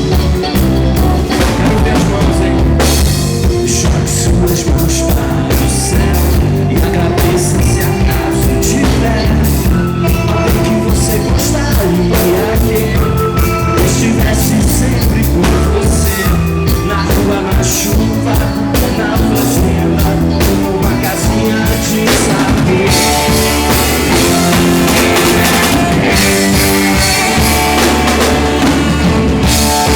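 Live rock band playing an instrumental passage, with drum kit and bass keeping a steady beat; the arrangement shifts about two-thirds of the way through.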